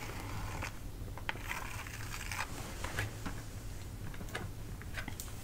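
Irregular light clicks and taps of a plastic makeup palette and other packaging being handled, with no words, over a steady low hum.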